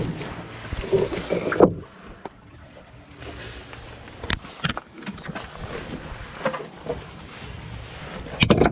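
Irregular scuffs, knocks and rubbing from hands and body moving over jetty rocks, heard as handling noise on a body-worn camera, with wind on the microphone. A louder rubbing burst comes near the end as an arm brushes close past the camera.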